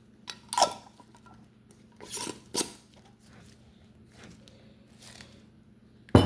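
A few short knocks and clinks of things being handled and set down, with a louder knock near the end.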